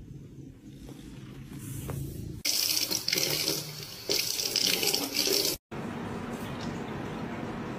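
Kitchen faucet running into a stainless steel sink, an even splashing hiss that starts suddenly about two and a half seconds in and cuts off abruptly about three seconds later. After it comes a quieter steady trickle from a pet water fountain.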